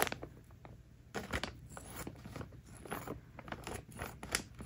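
Clear plastic bag around a plush toy crinkling and rustling in short, irregular bursts as it is handled and opened.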